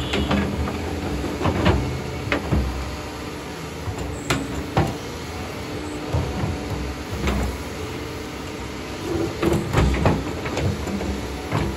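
Doosan excavator's diesel engine running steadily, with scattered sharp knocks and clunks through the working.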